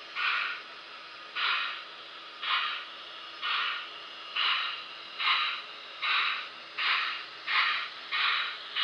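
Sound-decoder steam exhaust of an OO gauge model LNER A4 Pacific (No. 60007), played through its onboard speaker: about ten hissing chuffs that come steadily quicker, from about one a second to nearly two a second, as the locomotive pulls away.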